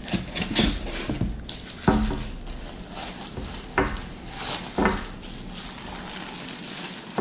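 Crinkly wrapping rustling as it is pulled and unwrapped from a drinking glass, with a few sharp handling knocks, the loudest about two seconds in.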